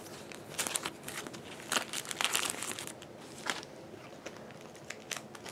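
Clear plastic photocard sleeves crinkling and crackling as the cards are handled, a run of short crackles over the first three and a half seconds or so, then only faint rustling.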